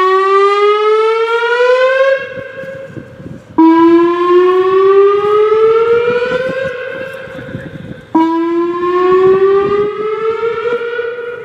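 WS-2000 outdoor warning siren sounding a repeated rising wail: a wail already climbing at the start tails off about two seconds in, and fresh ones start abruptly about 3.5 and 8 seconds in, each gliding upward for around three seconds before fading.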